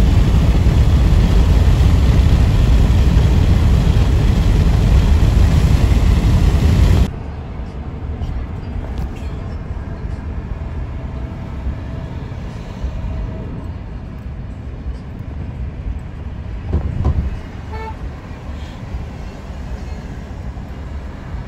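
Road noise from a car driving at night: a loud rushing noise that cuts off abruptly about seven seconds in, giving way to a quieter low rumble from the moving vehicle. A short horn toot sounds near the end.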